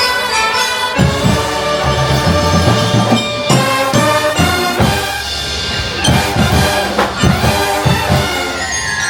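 Drum and bugle corps playing: brass horns carry a melody over marching drums, with heavy bass-drum hits starting about a second in. Glockenspiel or xylophone notes run through the upper part.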